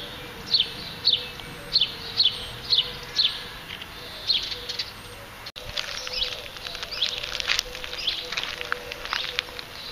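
A bird chirping over and over, short falling chirps about twice a second. After a cut about halfway, a dog chews a hard plastic ring toy, a quick run of clicks and crackles.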